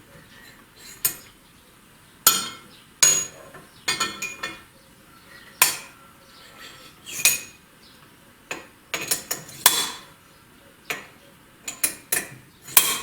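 Irregular sharp metallic clinks and taps, about fifteen of them, some in quick pairs: steel engine valves being pulled from and dropped back into a cylinder head's valve guides and set down as they are swapped between seats.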